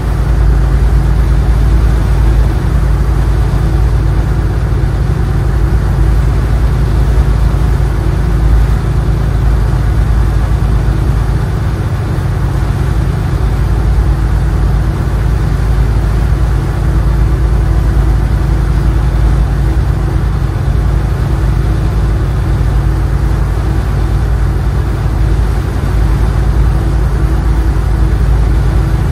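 Power boat engine idling steadily: a loud, even low rumble with a steady hum above it.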